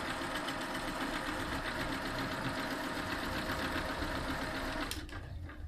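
Singer Fitline 6280 sewing machine running steadily, sewing a plain straight stitch with a fast, even needle rhythm, then stopping about five seconds in.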